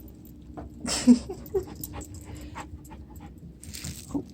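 A dog panting and breathing, loudest in a breathy burst about a second in and again near the end, over a faint steady hum.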